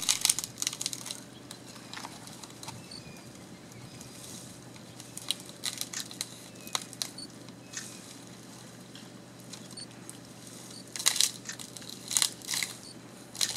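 African elephant stripping bark and breaking twigs off a mopane tree with its tusks and trunk: irregular cracking, snapping and tearing of wood. The cracks come in clusters near the start, around the middle and again near the end.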